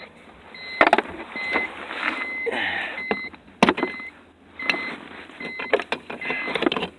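A car's warning chime beeping steadily, about once every 0.8 seconds, over clicks, knocks and rustling as a plug-in OBD code reader is handled and connected.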